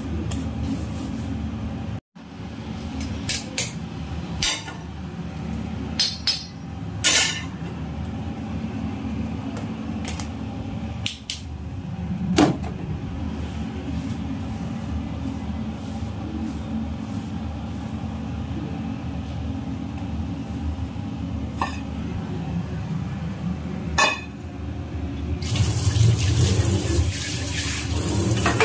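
Scattered knocks and clatters of steel bowls and utensils being handled over a steady low hum while a floury worktop is cleared. Near the end a kitchen tap comes on and runs, water spraying into a stainless steel sink.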